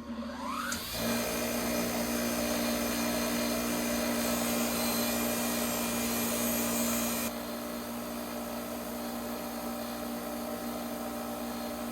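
Power tool spinning a wire brush against a rusty hand plane part to scour off the rust. The motor spins up in the first second, then runs with a steady hum, a little quieter from about seven seconds in.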